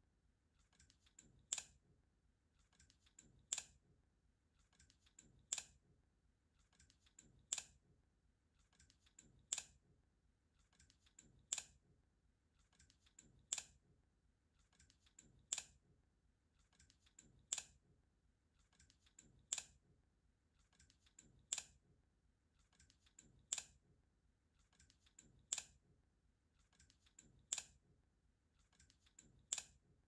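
Balisong (butterfly knife) flipped through the Y2K rollover again and again: a sharp click of the handles snapping shut about every two seconds, each with a few fainter clacks just before it.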